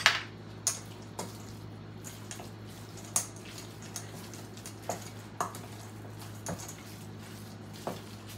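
Metal spoon clinking and scraping against a stainless steel mixing bowl while chicken salad is stirred: irregular sharp clinks about once a second, the loudest right at the start.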